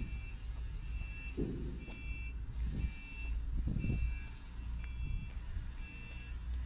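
A truck's warning beeper sounding a short two-tone beep about once a second, over the steady low hum of a diesel engine running.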